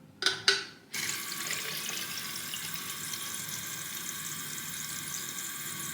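Two short sharp bursts, then a tap running steadily from about a second in, filling a spray bottle with water.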